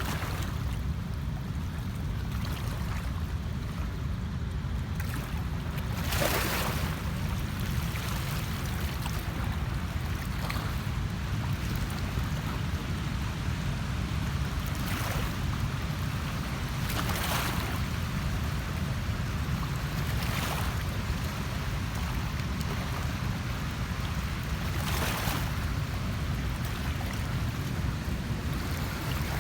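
Steady low wind rumble on the microphone, with a short rush of water sound every few seconds.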